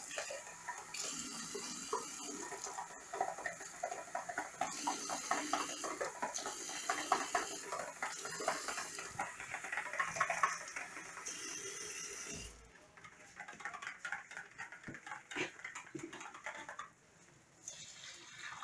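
Kitchen tap running hot water into a plastic container while a whisk clicks and scrapes against its sides. The water shuts off about twelve seconds in, leaving a few scattered light knocks and clinks.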